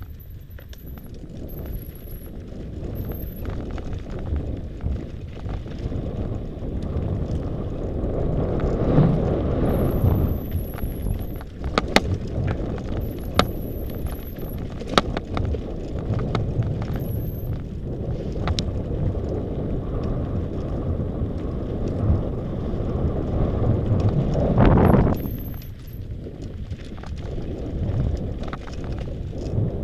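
Mountain bike riding down a rocky dirt trail, heard from a camera mounted on the bike: tyres rumbling over gravel and stones, with sharp knocks and rattles from the bike over bumps. The rumble swells louder about 9 and 25 seconds in.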